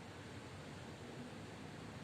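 Heavy rain falling steadily, a continuous even hiss with no distinct drops or gaps.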